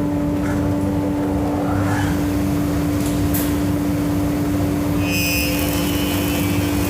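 Felder Hammer planer thicknesser running with its freshly fitted spiral cutter block: a loud, steady hum with a strong single tone over a rumble and hiss. A higher whine joins about five seconds in.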